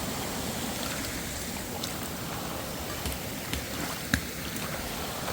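Steady rush of flowing creek water, with a few light knocks, the sharpest about four seconds in.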